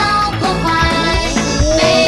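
Upbeat background music with a steady beat and held melodic notes.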